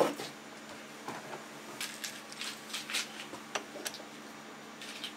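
Light metallic clicks and clinks of steel tooling being handled at a stopped lathe chuck while a collet and collet nut are fitted, opening with a louder clunk, over a faint steady hum.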